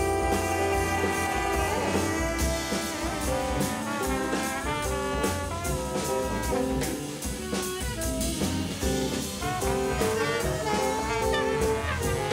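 Jazz band playing: a horn section of trumpet, alto and tenor saxophones and trombone plays held and moving lines together over bass and drums, with steady cymbal strokes.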